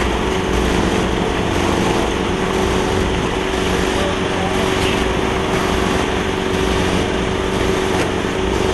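An engine running steadily at a constant speed, with an unchanging droning note.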